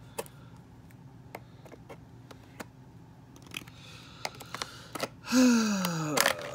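Small flush cutters clicking as they snip the ties and plastic holding a doll in its box, then plastic packing rustling as it is handled. About five seconds in comes the loudest sound: one drawn-out squeak falling in pitch for about a second, ending in a sharp click.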